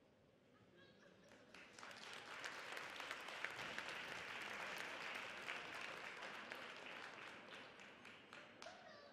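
Audience applauding: the clapping builds about a second and a half in, holds, then thins out near the end.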